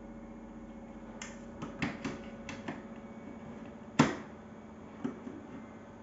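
Light clicks and knocks of hard plastic as the hose of a Bosch bagless canister vacuum cleaner is handled and wound around the canister with the machine switched off. There are a handful of quick clicks, then one sharper knock about four seconds in, over a faint steady hum.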